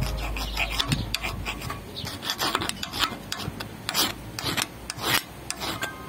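Rusty flat steel blade worked by hand against a motorcycle front-fork part, scraping metal on metal in quick, irregular strokes.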